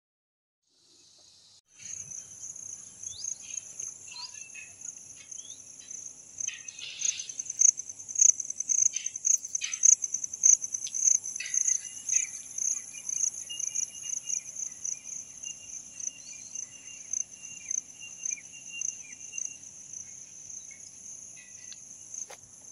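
A steady, high-pitched chorus of chirping insects that pulses in a quick beat and starts about two seconds in, with short chirps and whistles over it.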